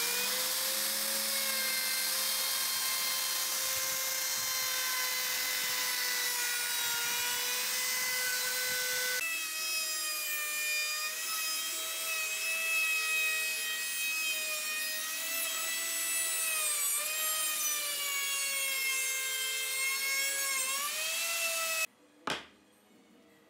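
Electric plunge router running at full speed with a high, steady whine while routing a wooden frame, the pitch dipping briefly twice near the end as the bit takes the cut. The sound stops suddenly near the end, followed by a single sharp click.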